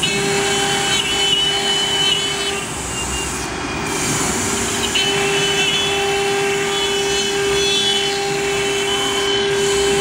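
CNC router spindle whining steadily as its bit routes grooves into an MDF sheet, over the hiss of the cut. The whine fades about two and a half seconds in and returns strongly about five seconds in.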